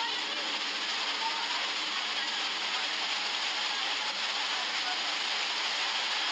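Heavy rain pouring down and a lahar of muddy floodwater rushing along a road, heard together as one steady, even rush of water.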